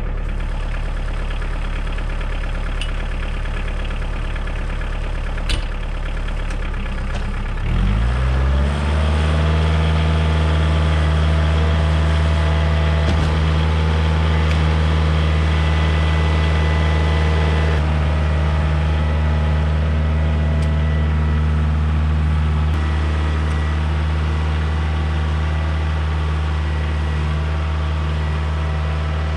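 2012 Kioti DK40se tractor's diesel engine running at idle, then revved up about eight seconds in and held at a steady higher speed.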